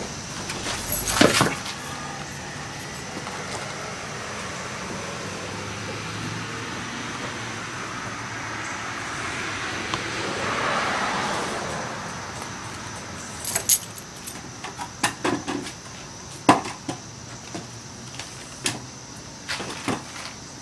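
Outdoor background noise with a vehicle passing by, loudest about ten seconds in, followed by a scatter of short sharp clicks and knocks.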